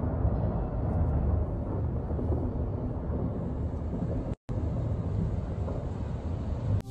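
A steady low rumble with no distinct blasts, which cuts out completely for a moment about four and a half seconds in.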